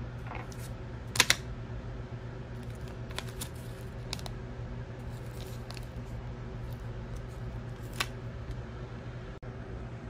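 Short sharp clicks and taps as laptop RAM sticks and an anti-static bag are handled against the laptop's plastic underside, the loudest a double click about a second in, over a steady low hum.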